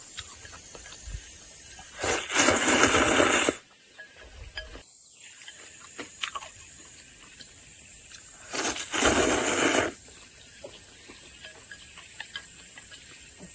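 A person slurping noodles in through the mouth twice, each a loud rushing slurp lasting about a second and a half, with faint chewing clicks between.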